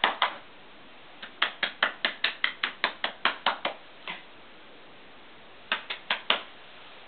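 Hands clapping quickly, about five claps a second, in short runs with pauses between: a person coaxing a puppy to come to them during a temperament test.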